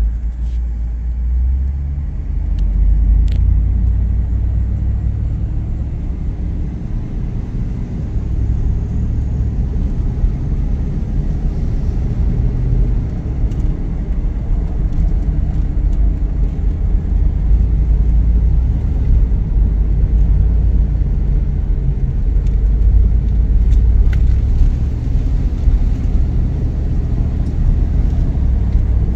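A truck driving slowly, heard from inside the cab: a steady low rumble of engine and road noise that swells and eases a little as it goes.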